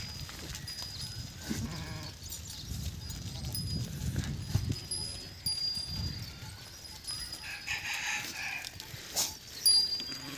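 Farmyard sound around a pen of Nellore Jodipi sheep: occasional calls from the flock, small birds chirping in short high notes again and again, and a low rumble underneath.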